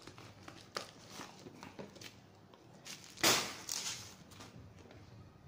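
Clear plastic wrapping crinkling and cardboard rustling as a phone box is pulled out of its cardboard shipping carton and unwrapped, with one louder crinkle a little past halfway.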